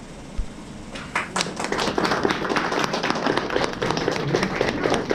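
A small audience applauding by hand, the clapping starting about a second in.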